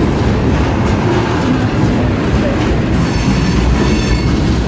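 Freight train cars rolling past close by: a loud, steady rumble and rattle of steel wheels on the rails, with a high wheel squeal coming in about three seconds in for a second or so.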